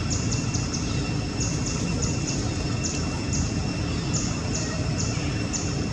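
Outdoor ambience: a steady low rumble with short, high chirps repeating about twice a second over a faint, steady high whine.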